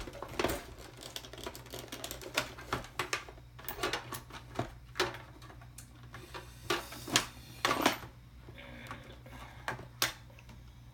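Small metal hand tools being rummaged through, giving irregular sharp clicks and clattering knocks, with a few louder knocks about two-thirds of the way in.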